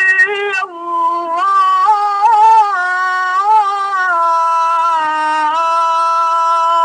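A man's solo voice chanting the ezan, the Islamic call to prayer, in long ornamented held lines. A brief break comes about a second in, then one long wavering phrase that settles into a steady held note near the end.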